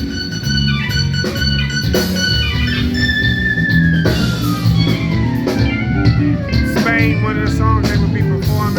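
Live band playing organ-style keyboard over bass guitar, with a guitar-like line. About three seconds in, a high held note slides slowly down in pitch.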